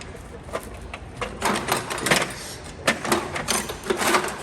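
Loose metal hand tools (screwdrivers and sockets) clinking and clattering as they are rummaged through and set down, an irregular run of sharp clicks.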